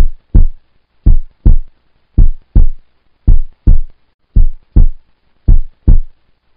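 Heartbeat sound effect used as a quiz countdown timer: deep double thumps, lub-dub, repeating evenly about once a second, six times.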